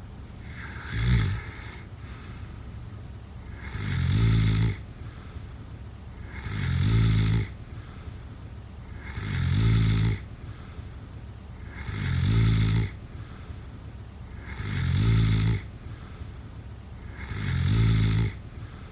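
A person snoring in a steady rhythm: seven low, rattling snores about every two and a half seconds, each swelling over about a second and stopping abruptly. The first, about a second in, is shorter and weaker than the rest.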